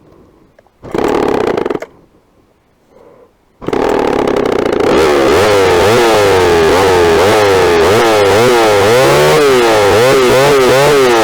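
Old Homelite two-stroke chainsaw being started: it fires for about a second and stops, then catches again a few seconds in and keeps running, its pitch swinging rapidly up and down as the throttle is worked.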